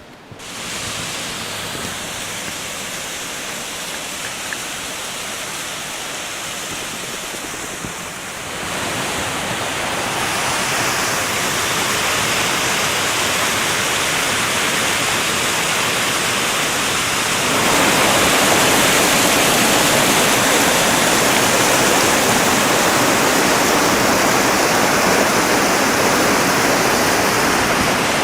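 A waterfall's rushing water, a steady noise that grows louder in two sudden steps, about a third and about two thirds of the way in.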